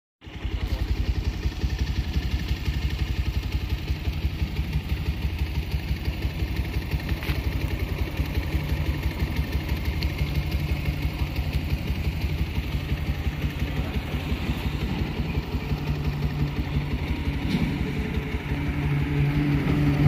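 An engine idling steadily with a fast, even low pulse, growing a little louder near the end.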